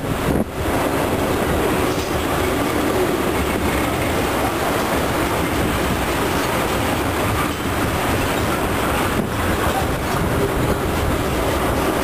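Freight train of tank cars rolling past close by: a steady, loud rumble and clatter of steel wheels on the rails.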